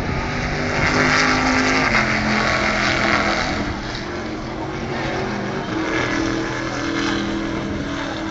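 Stock Car Brasil race cars' V8 engines running out on the circuit, several engine notes holding steady and shifting in pitch, louder in the first few seconds.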